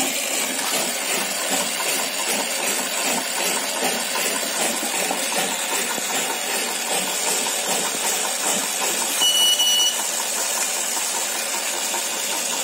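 Automatic cotton wick cutter machine running steadily, feeding cotton rope and cutting it into wicks, with a dense, even mechanical noise. A short high beep comes about nine seconds in.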